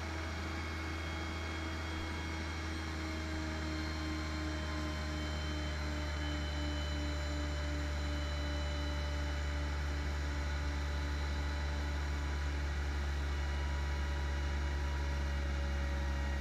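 Fire engine motor running steadily at pumping speed while it fills a tanker with water from a hydrant: a low, even drone with a few faint steady whining tones above it, slowly growing a little louder.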